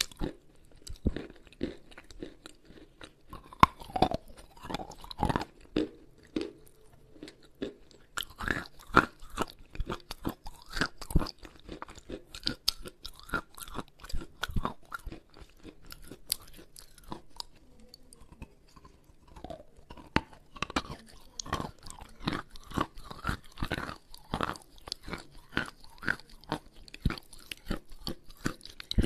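Close-miked biting and chewing of wet chalk: a dense, irregular run of sharp crunches with pasty chewing between them.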